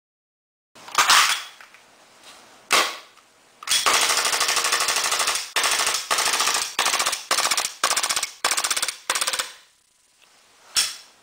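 KWA/KSC Glock 18c gas blowback airsoft pistol firing on full auto: a single crack about a second in and another near three seconds, then one long rapid burst of about two seconds, followed by a string of six or seven short bursts, and a last crack near the end.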